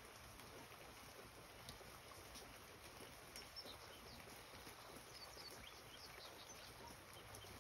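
Near silence: quiet garden ambience, with a few faint, high bird chirps in the second half.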